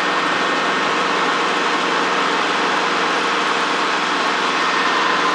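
Steady cabin noise of a light helicopter in flight: an even rushing hiss with faint steady whining tones underneath.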